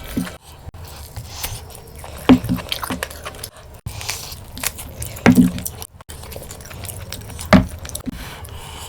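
Close-miked eating of mutton curry and rice: wet chewing with sharp mouth smacks three times, a few seconds apart.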